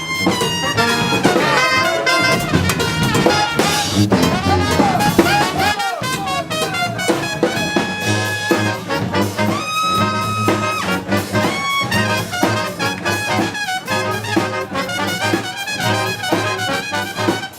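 A brass band playing funk live: trumpets and trombones on the melody with held notes, over a tuba bass line and drums.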